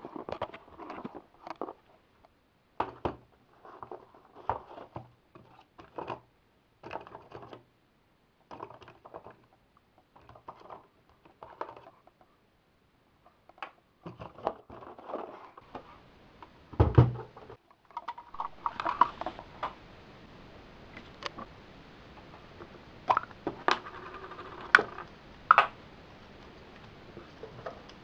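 Close handling noises: a string of short clicks and knocks of small objects being moved, with one heavier thump about seventeen seconds in. From about eighteen seconds a steady hiss runs under further sharp clicks.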